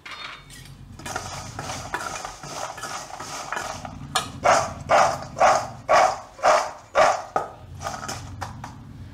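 Fried cashews rattling against a stainless steel bowl as they are tossed with spice and salt, a loose clatter at first, then about four seconds in a run of loud, regular shakes about twice a second.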